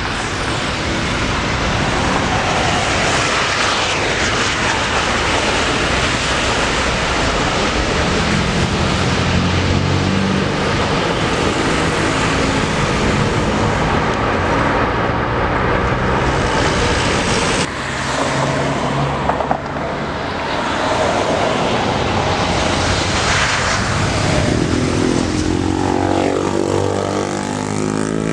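Jet airliner engines on arrival: a Boeing 787-9 Dreamliner running loudly and steadily. After an abrupt change about two-thirds of the way through, an Airbus A320's engines come in, with a whine that grows near the end.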